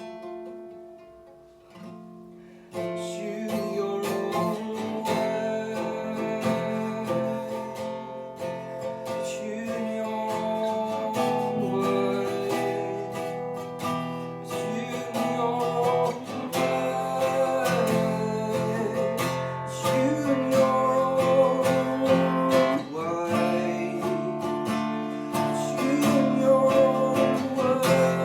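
Instrumental passage of a song led by acoustic guitar, strummed and plucked. It starts quietly, dips, then comes back in fuller about three seconds in and carries on steadily.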